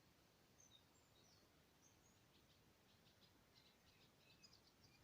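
Faint birdsong: many short, high chirps and whistled notes, coming thicker in the second half, over a low steady hiss.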